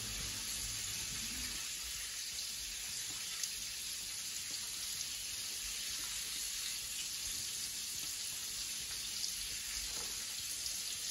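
Coconut-flour-crusted crayfish frying in hot oil: a steady, even sizzle.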